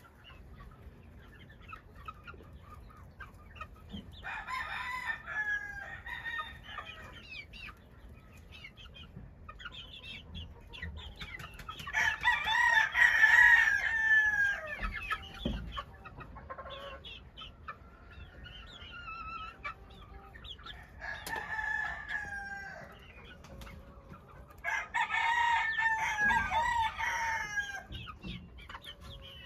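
A rooster crowing four times, the loudest crow about twelve seconds in, over the clucking of a flock of young Yellow Legged Hatch gamefowl.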